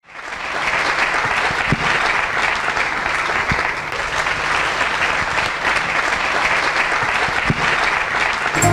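Audience applauding steadily, the clapping fading in at the start; music begins right at the end.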